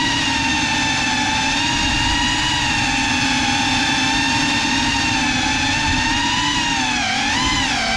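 GEPRC CineLog 35 cinewhoop's brushless motors and ducted propellers whining steadily in flight, their pitch dipping briefly and picking back up near the end as the throttle eases and returns.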